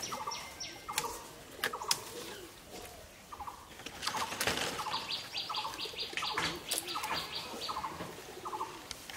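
Birds calling: a short note repeated irregularly about every half-second to a second, joined by a fast, even run of high notes from about four and a half to eight seconds in. Scattered sharp snaps and rustles come from branches and drumstick pods being broken off a moringa tree.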